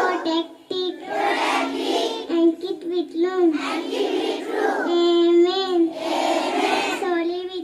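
A group of young children singing together in unison, in phrases of a second or two, over a steady note held underneath.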